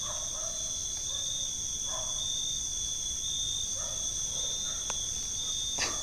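Night-time chorus of crickets and other insects: a steady, high-pitched trill. Under it a faint lower sound comes back about every two seconds, and there are a couple of sharp clicks near the end.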